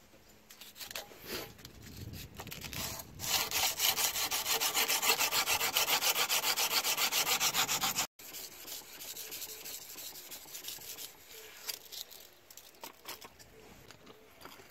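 A steel knife blade clamped on a wooden board is scoured by hand with an abrasive, taking the dark scale off the tempered steel. It starts with a few scattered scrapes, then fast, even back-and-forth strokes from about three seconds in. After an abrupt cut a little past the middle, the rubbing goes on quieter, with a few light knocks.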